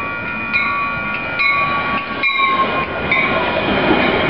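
Metra commuter train's horn sounding a steady chord that cuts off about two seconds in, with a grade-crossing bell striking just under once a second; then the bi-level coaches rush past close by with wheel and rail noise.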